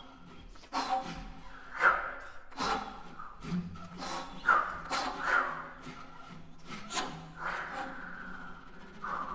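A metal spoon scraped and tapped along the strings of a classical guitar prepared with a metal mesh. It makes an irregular run of scratchy rubbing strokes and sharp clicks, the loudest about two seconds in.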